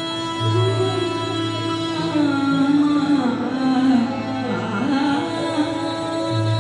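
Indian classical music with a melody that glides up and down over a steady drone.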